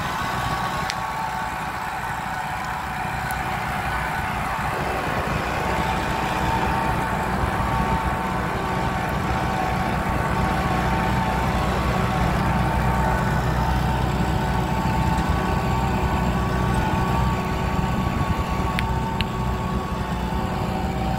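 Kubota tractor's diesel engine running steadily under load as it pulls a mounted plough through hard ground left unworked for twenty years, with a steady whine over the engine note. It grows a little louder about five seconds in.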